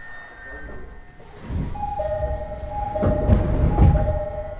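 Door chime inside a Tokyo Waterfront Area Rapid Transit 70-000 series train car: a two-note electronic chime repeated about three times, starting a couple of seconds in. It sounds over the rumble and thumps of the sliding doors moving.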